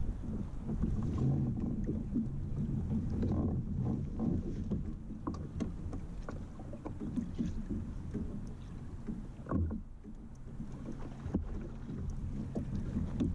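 Wind on the microphone and water lapping against a fishing kayak's hull, under a steady low rumble. Scattered knocks and clicks come as the angler shifts his feet on the deck and handles his rod; the sharpest knock falls about nine and a half seconds in.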